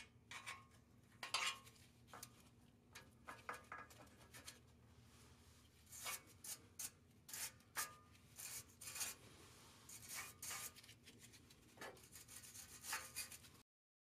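Flathead screwdriver prying and scraping at an old exhaust flange gasket to work it free: faint, irregular metallic scrapes and clicks.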